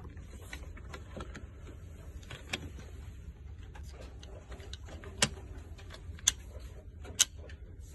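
Hard plastic adapter bracket being handled and fitted onto a metal post: small taps and rattles, then three sharp clicks about a second apart in the second half.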